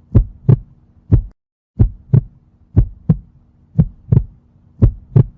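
Heartbeat sound effect: a steady lub-dub double thump repeating about once a second over a faint low hum. A short gap of total silence breaks the rhythm about a second and a half in.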